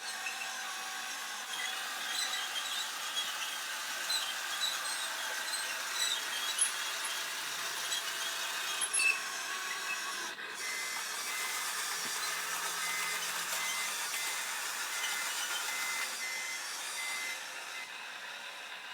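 Construction-machine sound effects from a Bruder toy light-and-sound module's small speaker: a thin, noisy machinery sound with no bass and scattered squeaks. A repeated high beep joins it about ten seconds in and stops near the end.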